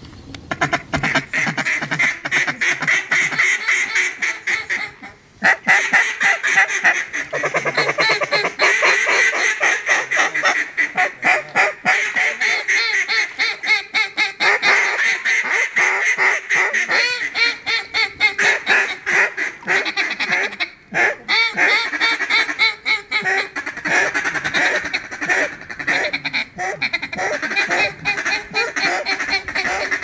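Fast, nearly continuous mallard-style quacking and chatter, many calls a second, with brief pauses about five seconds in and again around twenty-one seconds.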